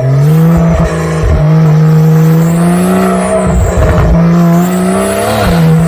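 Porsche 992 flat-six running through a SpeedCraft titanium full exhaust system, revved up at the start and held at a steady raised speed, with a couple of brief dips in revs.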